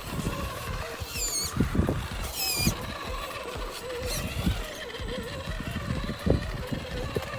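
RC rock crawler's electric motor and gears whining, the pitch wavering with throttle, over crackling and crunching. Two short high-pitched squeals come about a second in and again about two and a half seconds in.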